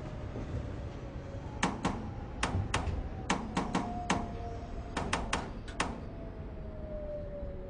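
Seoul Subway Line 4 train running, its wheels clacking over rail joints in groups of two and three sharp clicks, over a steady low rumble and a faint whine.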